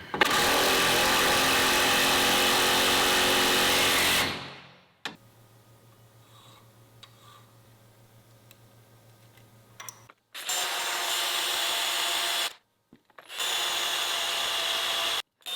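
Handheld power tool, drilling or grinding steel, runs steadily for about four seconds and winds down. A faint low hum follows, then the tool runs twice more in shorter bursts that stop sharply.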